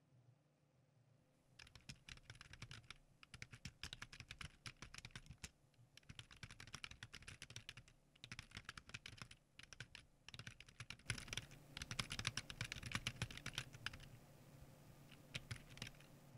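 Typing on a computer keyboard in quick runs of keystrokes with short pauses between, starting about a second and a half in. The typing is fastest and loudest about two-thirds of the way through, and a few last keystrokes come near the end. A low steady hum runs underneath.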